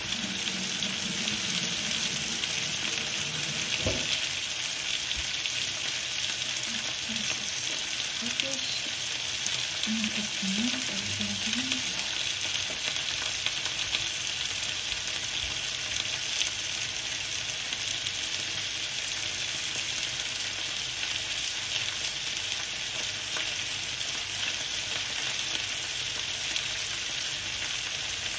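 Potatoes frying in a pan: a steady, even sizzle.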